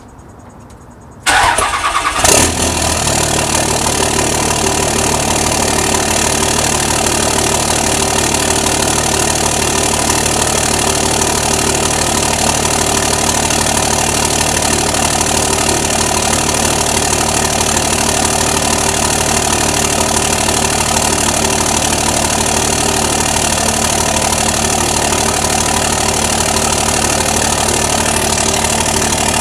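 2004.5 Dodge Ram's 5.9 high-output Cummins inline-six turbodiesel starting cold after sitting two days: it fires about a second in and settles quickly into a steady, loud idle. It runs through a 4-inch straight-piped turbo-back exhaust, with the intake tube hollowed out and the turbo silencer ring removed.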